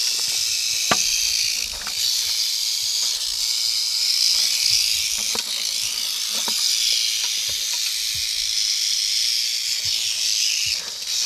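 Several rattlesnakes rattling at once, a continuous high buzz that swells and dips a little, with a few light clicks and knocks, the sharpest about a second in.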